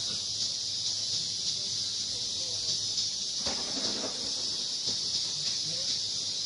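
Steady, high-pitched buzzing of an insect chorus, with a short faint voice-like call a little past the middle.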